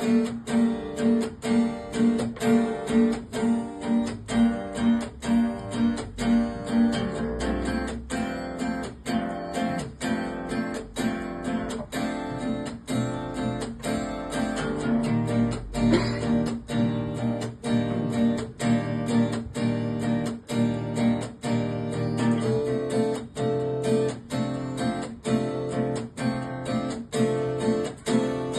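Acoustic guitar strummed in a steady rhythm, about two strokes a second: the instrumental introduction to a song, with no singing yet.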